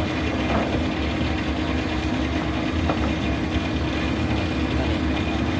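Double-cylinder Frick steam traction engine running a sawmill, a steady mechanical running sound with a constant hum.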